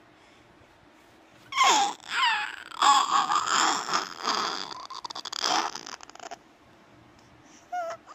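Six-month-old baby vocalizing: a string of high, gliding squeals and babbles starting about a second and a half in and lasting about five seconds, with the baby smiling rather than crying.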